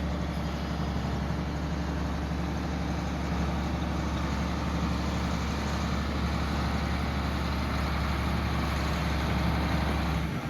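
A vehicle engine running steadily, a deep even drone.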